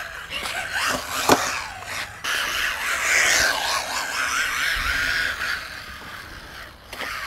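MJX Hyper Go brushless RC car running on smooth concrete: the motor's whine rises and falls with the throttle over the hiss of the tyres sliding, with a sharp knock about a second in.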